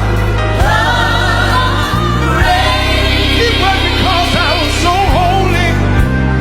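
Live gospel music: voices singing over sustained bass-heavy chords that change every second or two, with a lead voice bending its notes.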